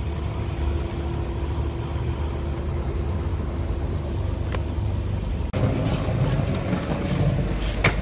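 Inline skate wheels rolling on pavement: a steady low rumble with a faint hum. About five and a half seconds in it turns rougher, and near the end two sharp clacks come as the skates strike a ledge.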